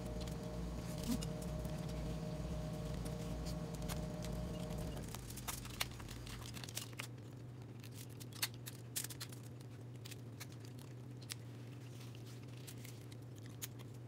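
Boiled seafood shells cracked and peeled by hand, with scattered sharp cracks and crinkling. A steady hum cuts off about five seconds in.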